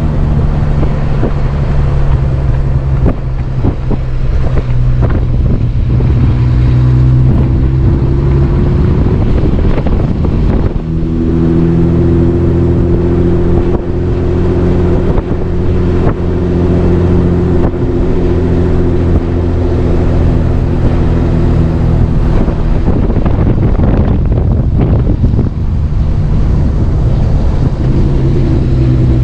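Car driving on a road: a steady engine hum under wind and road noise, the hum rising in pitch about eleven seconds in and dropping back about twenty-two seconds in.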